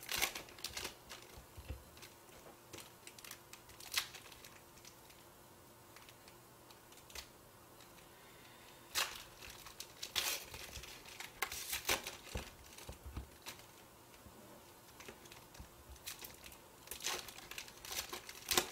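Foil wrappers of football-card packs crinkling and tearing as they are opened by hand, in scattered bursts with a quieter stretch in the middle.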